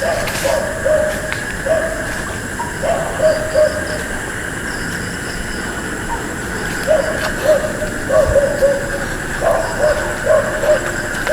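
Dogs barking repeatedly in short runs of three or four quick barks, over a steady high-pitched chorus of night insects and frogs.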